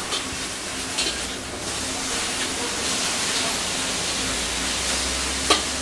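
Choi sum sizzling as it is stir-fried in a hot wok, a steady hiss, with a metal spatula scraping and tapping against the wok a few times, most sharply near the end.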